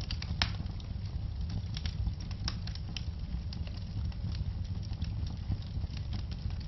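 Wood fire in a fireplace crackling, with irregular sharp pops and snaps of burning logs over a steady low rumble.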